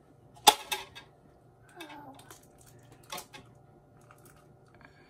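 Sharp taps and clinks on a bowl as eggs are cracked for brownie batter: one loud tap about half a second in with a couple of lighter clicks after it, and another tap about three seconds in.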